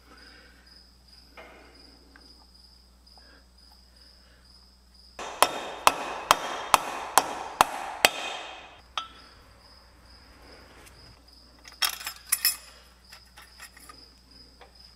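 Dead-blow mallet striking a tractor's flywheel: seven sharp blows, about two a second, starting about five seconds in, each ringing briefly. A few lighter metallic clinks follow near the end.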